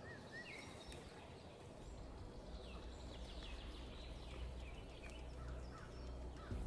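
Faint, scattered chirps and short calls of small songbirds, with a low rumble coming in about two seconds in.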